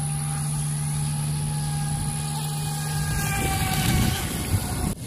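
Brushless electric motor of an Atomik Barbwire XL RC race boat running at speed on a 4S battery, a thin high whine that rises in pitch from about two seconds in, with a hiss of spray near the end. A low steady hum underneath stops about three seconds in.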